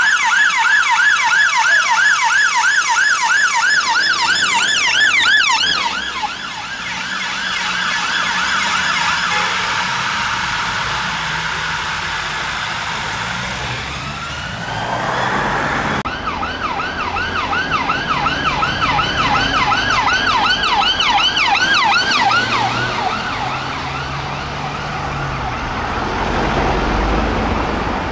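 Emergency vehicle sirens on fast yelp, the pitch sweeping up and down several times a second. The first, from an ambulance-service Skoda Octavia rapid response car, breaks off about six seconds in, and a single rising wail sounds around the middle. A second yelp, from a police Vauxhall Astra, runs for several seconds and then fades near the end, over low road and engine noise.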